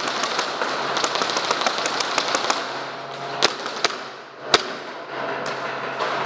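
Airsoft guns firing indoors: a fast volley of shots, several a second, for about two and a half seconds, then a few louder single cracks.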